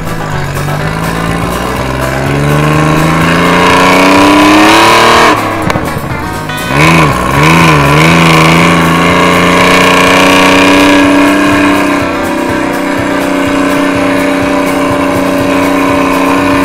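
Detroit Diesel engine of a 1951 Dodge M37 truck, heard from the cab while driving. The engine note climbs as the truck accelerates for about five seconds and drops suddenly at a gear change. After a brief wavering it settles into a steady note at cruising speed.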